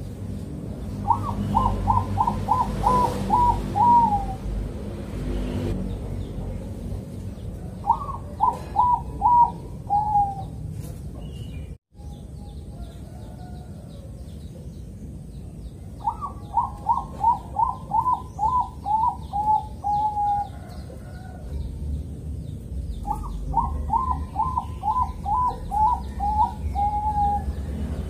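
Zebra dove of the Bangkok song type (perkutut bangkok) cooing four phrases. Each phrase opens with a higher note and runs into a quick string of short coos that fall slightly in pitch; the first two phrases are shorter and the last two longer.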